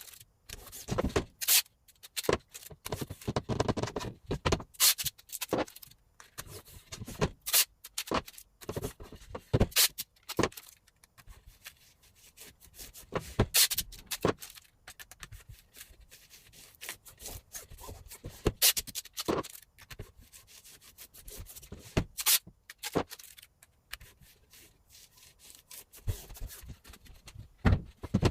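Silkscreen plate-making work: irregular taps, clicks and knocks of a screen frame and tools being handled, with rubbing and scraping in between.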